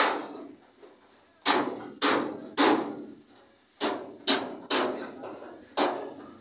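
Hammer blows on metal: about eight sharp, ringing strikes in uneven groups of one to three, each dying away within about half a second.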